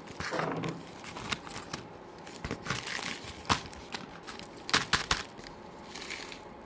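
Packaging being handled and unwrapped by hand: irregular crinkling and rustling, with a few sharp crackles about three and a half and five seconds in.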